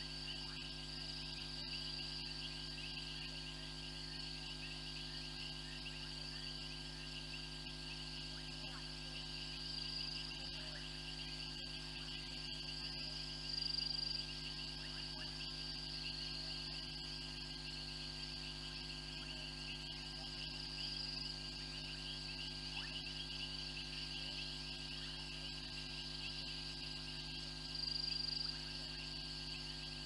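Steady night chorus of insects trilling continuously, with a steady low hum underneath. A nearer trill swells louder briefly about halfway through and again near the end.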